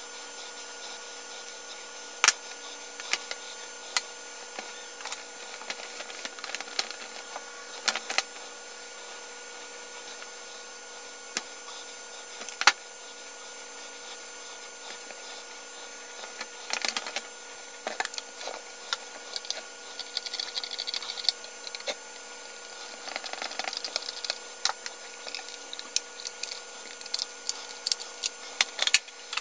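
Scattered clicks, taps and short scrapes of hands working on a plastic electrical plug with a small screwdriver and handling plastic parts, over a steady background hum.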